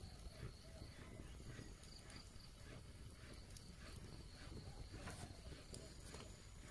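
Wood fire crackling, with scattered small pops and ticks, over a steady high insect trill.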